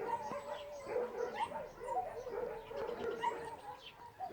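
Many short, high-pitched animal calls (yips or squeaks) overlapping, several a second.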